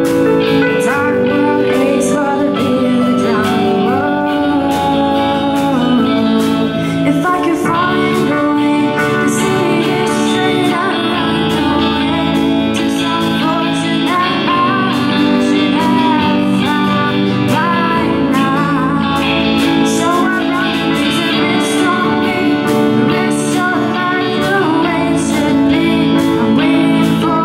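A live rock band playing a song: a voice singing over guitars, with a steady beat.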